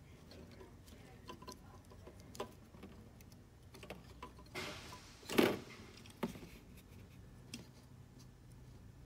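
Small plastic clicks and handling noises from a snap-together plastic model kit figure as its head is pressed on and the parts are handled, with a louder rub ending in a sharp click about five seconds in.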